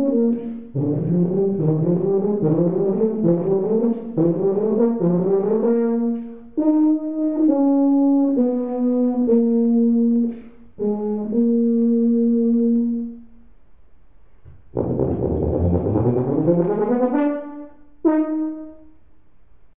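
Solo tuba playing unaccompanied: quick repeated note figures, then held notes stepping between pitches. After a short pause comes a loud rising run and one short final note that rings out and fades.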